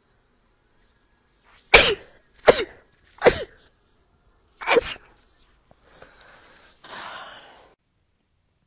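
A person sneezing four times in quick succession, the sneezes sharp and loud, then a quieter breathy sound about a second long near the end.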